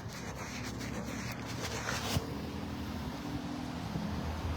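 Street ambience dominated by the low, steady hum of idling vehicles, with a single sharp click about two seconds in.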